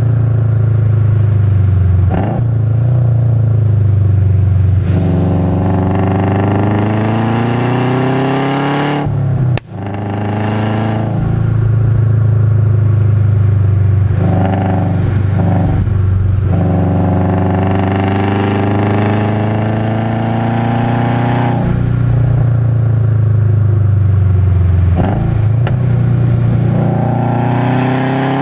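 2005 Subaru Legacy GT's turbocharged 2.5-litre flat-four, heard from inside the cabin, revving up and dropping back again and again as the car is driven hard through a run of bends. There is a brief sharp drop in the sound about a third of the way in.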